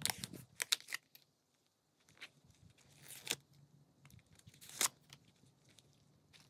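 White paper stuffing slid and pulled out of the card slots of a crossgrain leather zip-around card case: crinkly paper rustles with soft handling taps, in a burst during the first second, then separate rustles about two, three and five seconds in.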